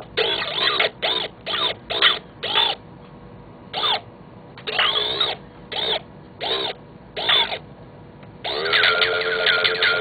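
Circuit-bent Texas Instruments Speak & Math speech synthesizer glitching: a string of about ten short, garbled electronic blips with sliding pitch. About eight and a half seconds in, it breaks into a long, steady buzzing drone.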